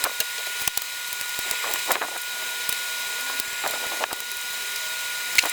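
Steady background hiss with a faint hum, dotted with scattered light clicks and taps, with faint voices in the background.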